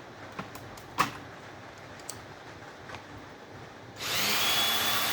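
A few light clicks and knocks of handling, one sharper click about a second in. Then, about four seconds in, a power drill/driver starts abruptly and runs at a steady speed, driving a fastener out of a large circuit breaker.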